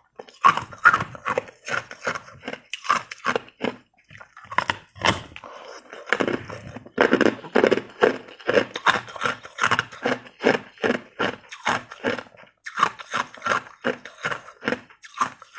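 Ice being bitten and chewed, a quick run of crisp crunches about three to four a second, with short pauses about four seconds in and again near twelve seconds; in the middle stretch the crunches are deeper and fuller.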